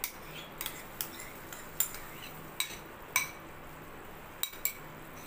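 A wooden spatula scraping blended mango out of a ceramic bowl into a pan, with about ten sharp, irregular clinks and knocks as the spatula and bowl strike each other and the pan's rim.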